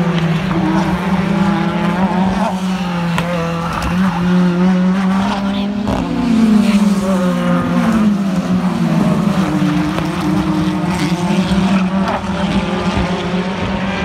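British Touring Car Championship cars' turbocharged 2.0-litre four-cylinder engines running at race speed, one car passing close about three seconds in. The engine pitch keeps rising and falling.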